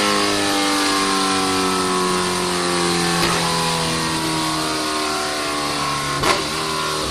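Kawasaki H2's supercharged inline-four running hard on a dyno at high revs, its pitch fairly steady and sagging slightly. Two sharp pops cut through, about three seconds in and near the end.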